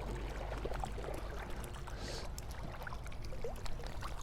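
River water running and trickling, with a low steady rumble underneath and small scattered splashes and ticks.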